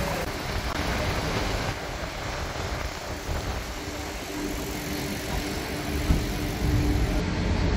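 Steady low hum and rumble of a docked car ferry's machinery running, growing heavier about six seconds in.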